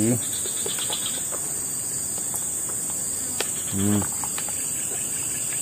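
Steady, high-pitched chorus of insects such as crickets, unbroken throughout. A brief voice sound comes about four seconds in, along with a couple of light clicks.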